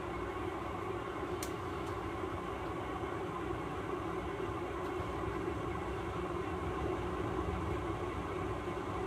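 A steady, even rumbling noise, with one faint click about a second and a half in.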